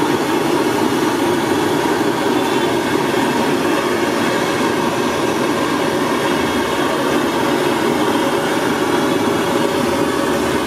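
Samosas deep-frying in a kadai of hot oil, a steady dense sizzle over a steady low rumble.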